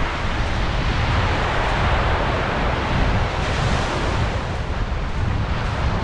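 Wind buffeting the microphone over the rush of surf on a beach, the surf swelling about two seconds in and easing off toward the end.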